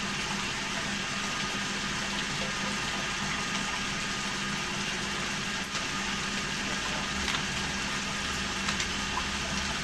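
A steady machine hum over a constant hiss, with a few faint ticks near the end.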